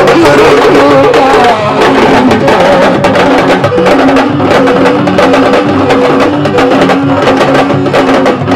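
Sabar drums played in a fast, dense rhythm of sharp strokes, with a held, stepping melody line over the drumming.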